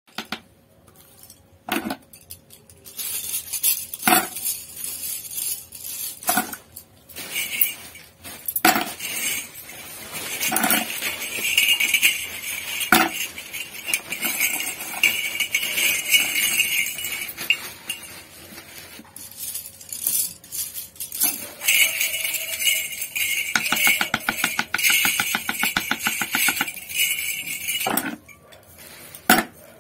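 Metal brush ferrules clinking and tapping as they are handled and sorted by hand, with scattered sharp clicks and a fast run of ticks about three-quarters of the way through.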